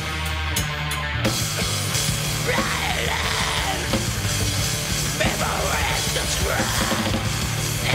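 Blackened thrash-death metal song played by a full band: distorted electric guitar, bass guitar and drum kit. Harsh shouted vocals come in about two and a half seconds in.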